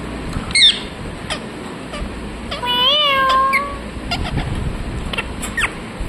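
Indian ringneck parakeet calling: a short shrill squeak about half a second in, then one drawn-out, rising-and-falling call about three seconds in, with a few light clicks between.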